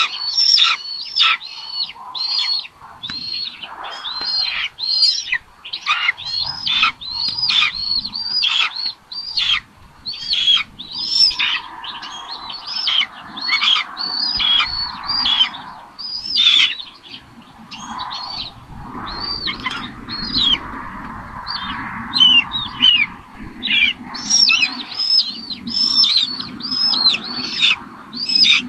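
Raptor nestlings giving a steady string of short, high-pitched begging calls, about two to three a second, while a parent feeds them. A softer, lower noise runs beneath the calls from about eleven seconds in.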